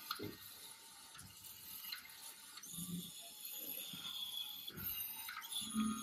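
Small DC gear motors of a four-wheeled robot car whirring in short spurts as it drives and turns, the loudest spurt near the end.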